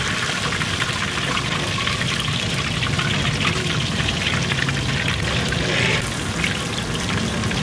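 Hot oil sizzling and crackling steadily in a deep wok while a fried pomfret is held on a perforated skimmer just above it, the oil frothing and draining back into the wok.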